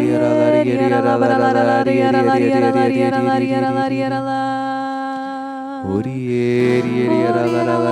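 Slow worship music: long held chords with wordless singing over a steady low note. The low note drops out for about a second about five seconds in, then returns.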